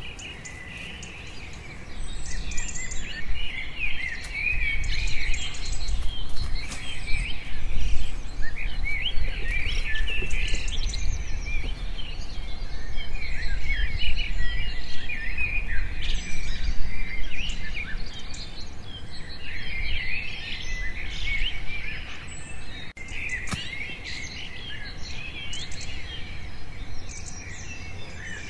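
Many small birds chirping and calling, short gliding notes that overlap without pause, over a low rumble that comes in about two seconds in, with a few sharp clicks.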